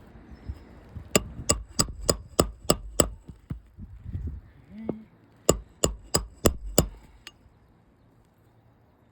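Hammer driving roofing nails into an asphalt shingle: two runs of sharp strikes, about seven and then five, roughly three a second, with a short pause between.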